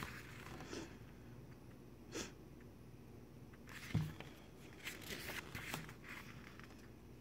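Pages of a photo book being turned by hand: scattered soft paper rustles and page flaps, with a light thump about four seconds in.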